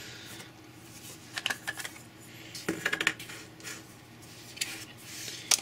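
Scattered small plastic clicks and clatter of camera lenses and lens caps being handled during a lens swap on a Canon 60D DSLR, with the Canon EF 50mm f/1.8 lens being readied to mount. The sharpest click comes near the end.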